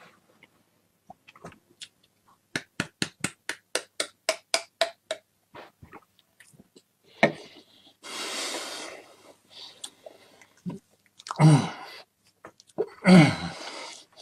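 A man choking on a mouthful of dry ground cinnamon: a quick, even run of short hacking sounds, a long breathy blow-out about eight seconds in, then two loud, strained gagging coughs falling in pitch near the end.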